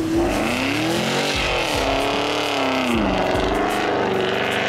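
Porsche Cayenne GTS engine revving, its pitch rising and falling several times as the all-wheel-drive SUV ploughs through deep snow with its wheels spinning and throwing snow.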